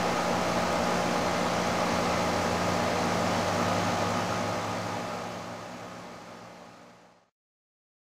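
Goodman 18 SEER heat pump outdoor unit running: a steady rush of air from its condenser fan over a low, even hum from its Copeland scroll compressor. The sound fades out near the end.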